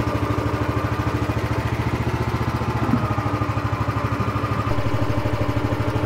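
Engine of a wooden river boat running steadily as the boat gets under way across the Mekong, with an even, rapid pulsing beat.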